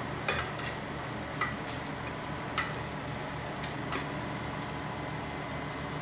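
Metal spatula clinking against an aluminium pot about seven times while stirring fish and carrots in sauce, the loudest clink about a third of a second in. Under it runs a steady hiss and hum.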